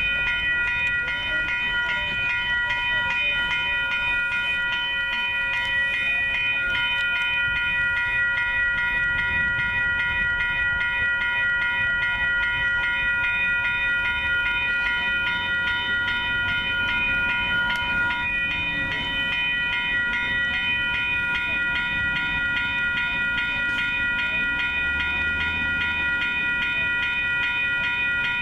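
Railroad grade-crossing warning bell ringing without a break, a fast run of evenly repeated metallic strokes on one bright, ringing pitch, sounding while the crossing gates are down for an approaching train.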